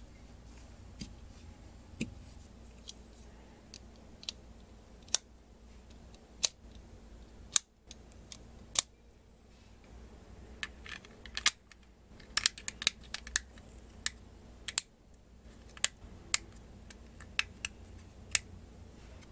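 Plastic LEGO Technic parts clicking as pins are snapped into holes and pieces are handled and fitted together: sharp, irregular clicks, with a quick run of them about halfway through, over a faint low hum.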